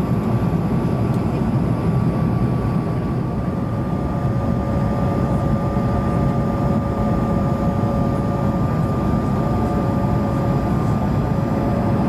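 Steady cabin noise of a Bombardier CS100 airliner on approach: a loud, even rush of airflow and engine noise from its Pratt & Whitney PW1500G geared turbofans, with a thin steady whine above it and a lower whine joining about three seconds in.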